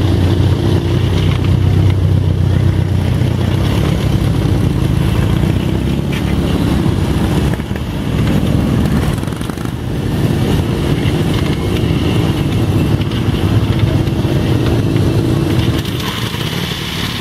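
1927 Harley-Davidson JD's F-head V-twin running just after being started, its newly replaced intake valve working. The engine speed rises and falls, with short dips about eight and ten seconds in, and it settles lower near the end.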